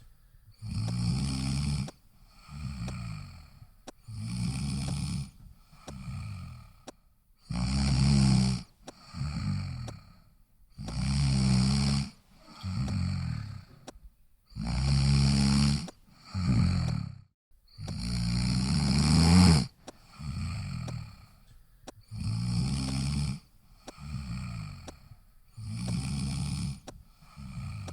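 A person snoring in a regular rhythm: loud, rattling snores in pairs, a longer one followed by a shorter one, every three to four seconds, with the loudest a little past the middle.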